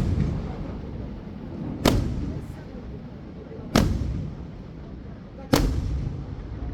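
Fireworks shells bursting: three loud bangs, evenly spaced a little under two seconds apart, each trailing off in a short rumble.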